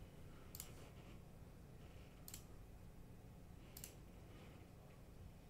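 Three faint computer mouse clicks, spaced about a second and a half apart, over quiet room tone, as wire segments are placed in a circuit drawing program.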